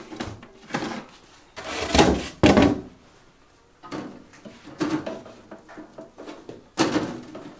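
Handling knocks and clunks as a honey comb frame is lifted out of a frame rack and brought over a plastic uncapping tub: several separate thumps with pauses between, the loudest about two seconds in.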